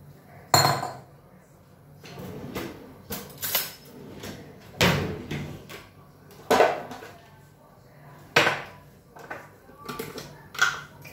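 Kitchenware being handled: a string of about a dozen knocks and clinks of dishes and pots at uneven intervals, a few of them louder clangs with a brief ring.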